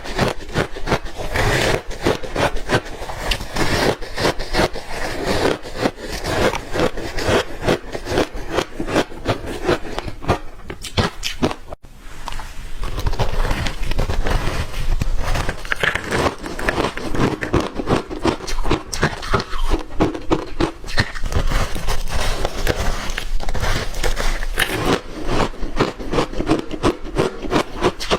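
Close-up crunching of frozen ice chunks coated in matcha powder being bitten and chewed, a dense run of crisp cracks and crackles with a short break about halfway through.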